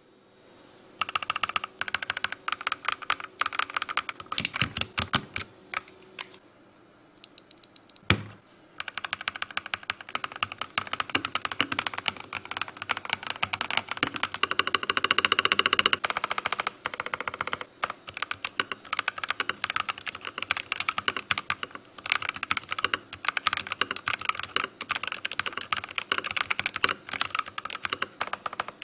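Fast typing on an FL-Esports GP75 mechanical keyboard with TTC linear switches and PBT keycaps: a rapid, dense stream of keystrokes. The typing breaks off for about two seconds around six seconds in, then one sharp key strike comes, and steady fast typing resumes.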